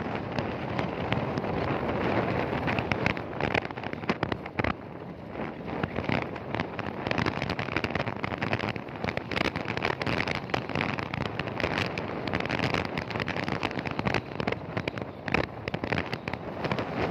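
Wind buffeting the microphone of a moving vehicle: a dense, rough rush broken by irregular crackling pops, with no steady engine tone standing out.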